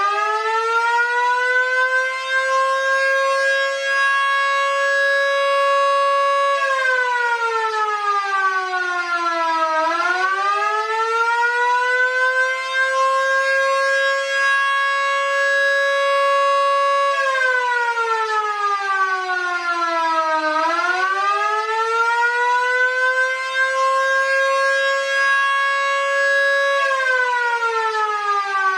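A Vixen Horns VXS-1450 and a miniature Fedelcode Model 7 electromechanical siren sounding together in attack mode. They are switched on and off together, so they wind up to a high steady wail over about six seconds, are cut, and wind down for a few seconds before winding up again. This cycle runs three times.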